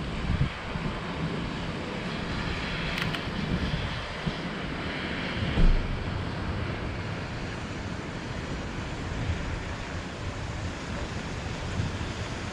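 Wind rushing over the microphone with low buffeting, and one short low thump a little before halfway.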